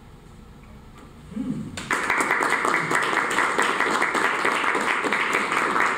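Applause: after a short hush, many hands start clapping about two seconds in and keep going steadily.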